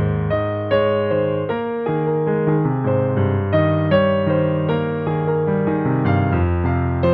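Solo piano playing a slow, tender melody over sustained bass notes, with a new note struck about every half second.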